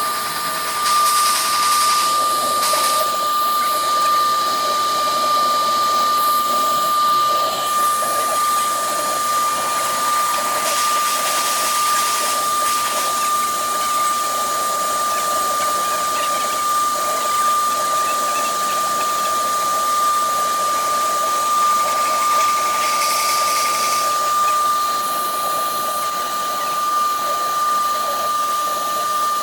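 Woodworking CNC router spindle running with a steady high whine as its bit engraves MDF, over a cutting hiss that swells and fades.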